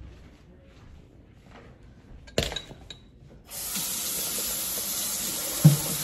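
A clatter, then a kitchen tap is turned on about three and a half seconds in and hot water runs steadily into the sink.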